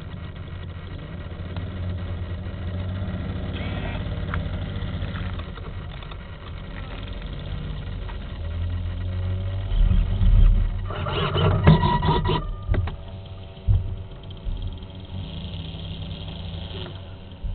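A small engine running steadily nearby, muffled from inside the model glider's canopy. A burst of loud knocks and rattles comes about ten to twelve seconds in.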